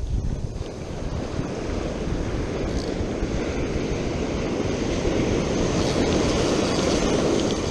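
Ocean surf: a wave breaking and washing up the beach, swelling to its loudest near the end, with wind rumbling on the microphone.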